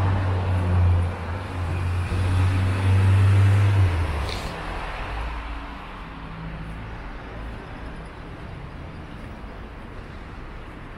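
A nearby motor vehicle's engine runs with a low steady hum that fades after about four seconds, leaving quieter road traffic rumble.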